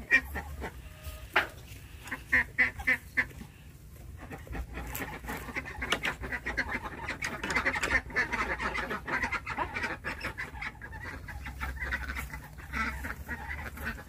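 A flock of penned ducks quacking: a few loud, separate quacks at first, then from about four seconds in many ducks calling at once in a continuous babble of quacks.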